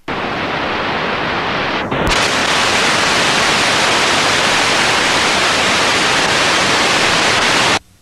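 Loud hiss of analog video static, the noise that goes with a snowy, unrecorded picture. It starts abruptly, turns brighter and harsher about two seconds in, and cuts off suddenly near the end.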